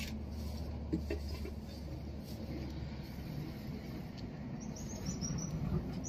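Open-air harbour ambience: a steady low rumble that eases a little before halfway, with a couple of small clicks about a second in and faint high bird chirps near the end.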